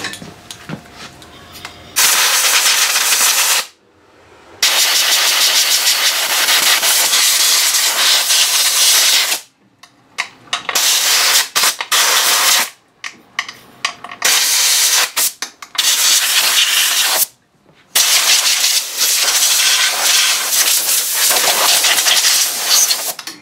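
Compressed-air blow gun hissing in loud blasts: two long ones, then a string of short spurts, then another long blast. Each cuts off sharply when the trigger is released.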